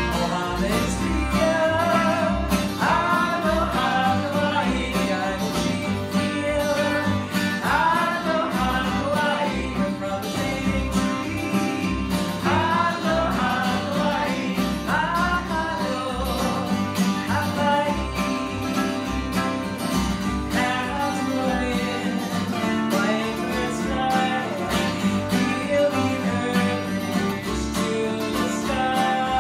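Live acoustic folk music: strummed acoustic guitars with a woman singing the melody in phrases.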